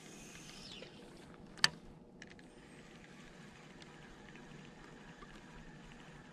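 A fishing cast: line running off the reel with a brief falling hiss, then a single sharp click about a second and a half in, followed by faint scattered ticking.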